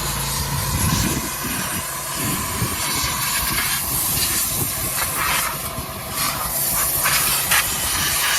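Loud, steady hissing of a high-pressure jet, with scattered sharp clicks and knocks in the second half.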